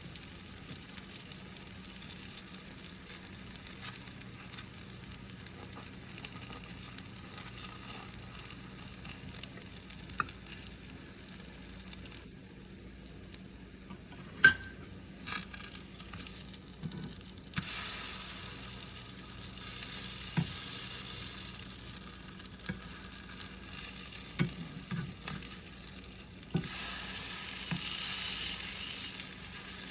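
Green onion pancakes sizzling as they fry in oil in a pan. The sizzle grows louder about two-thirds of the way through and again near the end, with a few light clicks of utensil on pan and one sharp clack about halfway.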